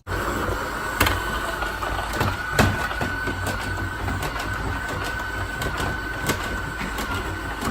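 Kobot robot vacuum running: a steady high whine over constant motor and brush noise, with a few sharp clicks.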